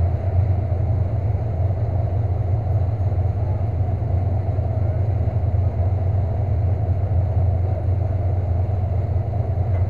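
Demolition derby truck's engine idling steadily, a low even rumble heard from inside the stripped cab.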